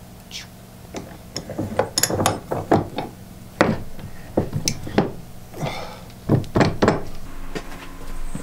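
Irregular knocks and metallic clicks from a Yost 4½-inch bench vise being worked as 130 lb braided fishing line is clamped in its jaws, over a faint steady low hum.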